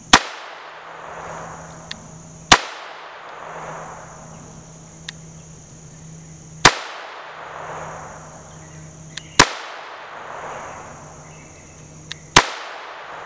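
Five single shots from a Kel-Tec P17 .22 LR pistol firing high-velocity rounds, a few seconds apart, each followed by a long echoing decay.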